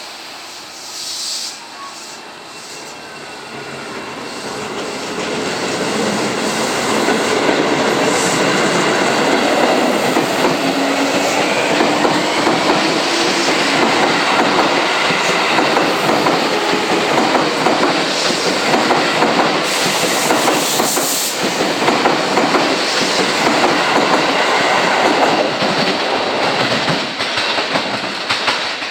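Seibu 9000-series electric commuter train pulling out and picking up speed, its wheels clacking over the rail joints as the cars pass. It grows louder from about four seconds in and stays loud until it eases off near the end.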